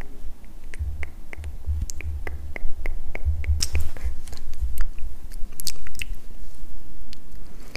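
Close-miked ASMR trigger sounds: a quick run of small sharp clicks and taps, several a second, with low thuds underneath.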